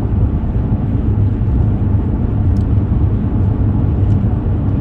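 Car driving along a highway: a steady low rumble of road and engine noise.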